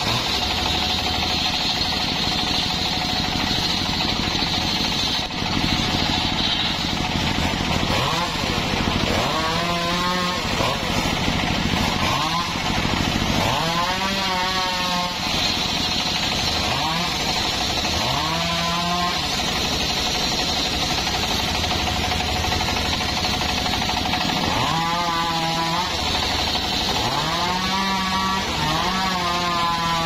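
Homemade circular saw bench ripping a log of old mahogany lengthwise: the blade runs loud and continuous through the cut. Several times its pitch swoops down and back up as the blade takes and sheds load.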